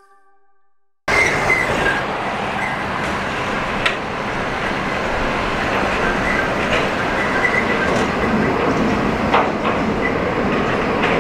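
JR 205-1100 series electric train approaching on a steel girder bridge, starting suddenly about a second in. Wheels on rail make a steady rumble, with a few sharp clicks and brief faint high squeals from the wheels.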